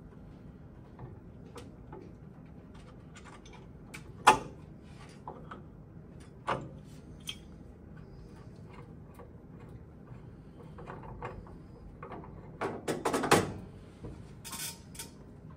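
Scattered metal clicks and knocks of a hand tool and fittings as the gas line is undone from a boiler's gas valve. There is one sharp knock about four seconds in and a cluster of knocks near the end.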